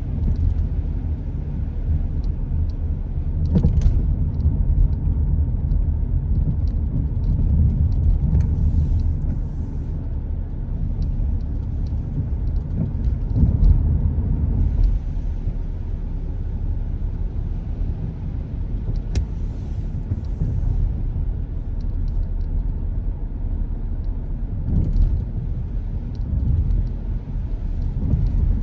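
Steady low rumble of a car being driven, with engine and road noise and a few faint clicks now and then.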